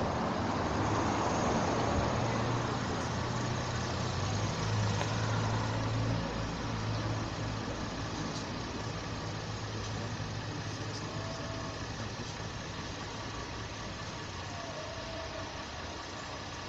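Motor vehicle engine running at a low steady hum, loudest for about the first six seconds and then fading, over street traffic noise.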